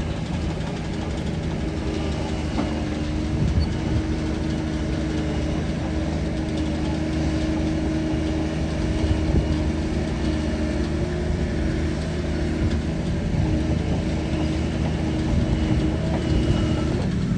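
Shantui DH17 bulldozer's diesel engine running steadily, its pitch wavering a little as it works.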